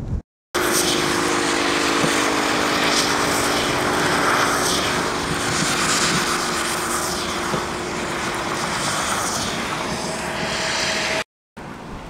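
Vehicle driving on a rain-soaked road: a steady hiss of tyres and spray with a low engine hum. It stops abruptly near the end.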